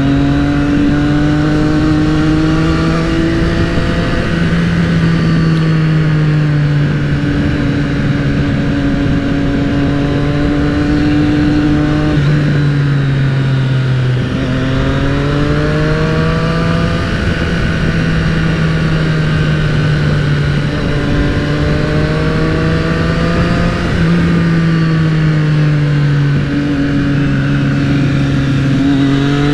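Triumph motorcycle engine running on the road, its note rising and falling steadily with the throttle, with a drop and fresh climb in pitch around halfway through. A rush of wind runs under it.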